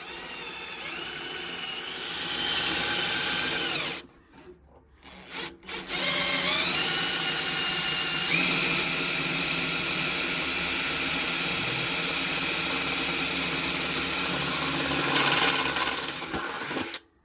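Electric drill boring into aluminium sheet. It spins up with a rising whine, runs about four seconds and stops, gives a short burst, then spins up again and runs steadily for about eleven seconds before stopping.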